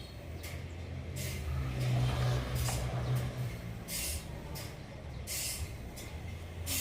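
Sawmill machinery running with a low engine hum that grows louder about a second in, broken by several short hissing bursts.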